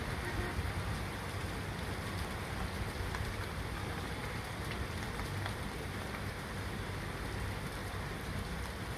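Steady rain falling, with a few individual drops ticking faintly now and then.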